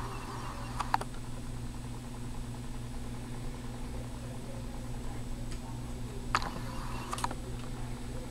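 Steady low mechanical hum with a few sharp clicks: two close together about a second in, and two more near the end.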